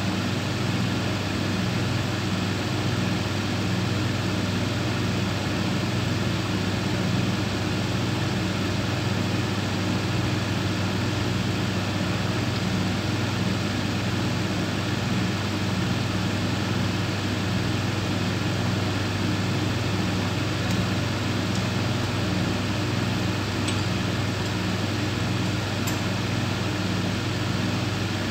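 Industrial thickness planer running steadily, a low hum over an even mechanical whir that holds the same pitch and level throughout.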